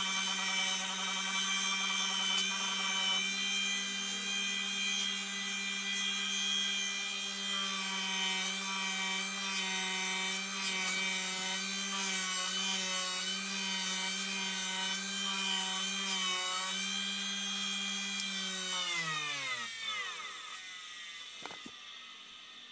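Bench grinder fitted with a cotton buffing wheel, running steadily while a forged steel blade is held against it and polished with fine compound. About three-quarters of the way through the motor is switched off and winds down, its hum falling in pitch until it stops.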